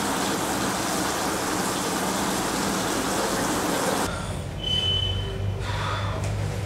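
Water running from a basin tap into the sink, a steady rush that cuts off abruptly about four seconds in, leaving a low steady hum.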